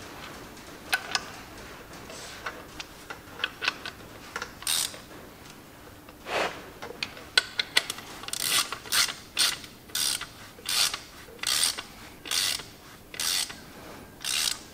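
Socket ratchet clicking as clutch cover bolts are tightened. There are a few scattered tool clicks at first, then from about halfway a regular run of short ratchet strokes, a little under a second apart.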